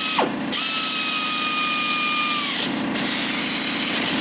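Cordless power tool running with a high, steady motor whine. It winds down briefly about a quarter second in, starts again half a second in and cuts off at about two and a half seconds. A steady hiss goes on around it.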